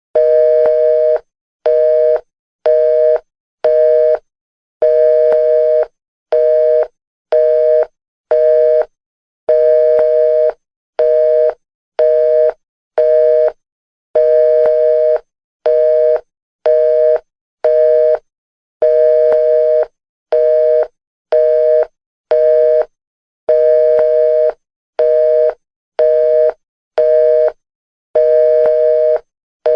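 Telephone line tone after the call has been hung up: a steady two-note beep switching on and off about once a second, some beeps longer than others.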